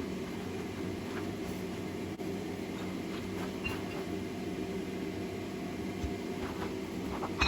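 Steady low rumbling hum of running shop equipment, with no hammer blows.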